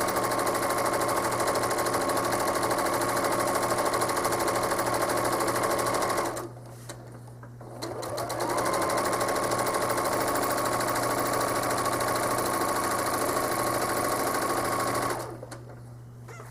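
Home sewing machine running at speed during free-motion quilting, with a steady whine. It stops about six seconds in, starts up again about two seconds later, and stops once more near the end.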